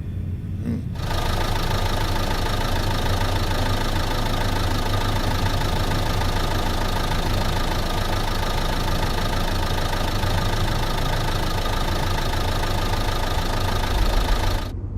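Heavy machine engine sound effect running steadily, with a low rumble and a dense rattling hiss: it comes in about a second in and cuts off suddenly near the end.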